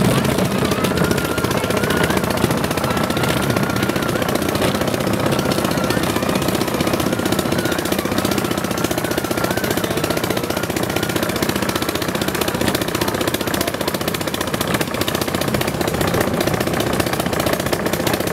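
Bamboo train (norry) running along the rails: a loud, rapid, continuous clattering rattle of the wheels and platform on the track, with its small engine running underneath.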